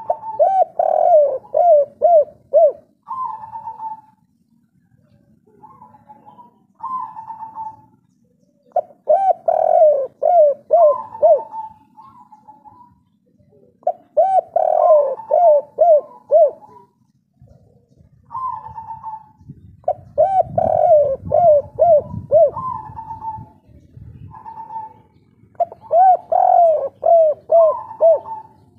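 Spotted dove (tekukur) cooing its song: about five phrases, each a quick run of four or five short, falling coos, with single higher coos between the phrases.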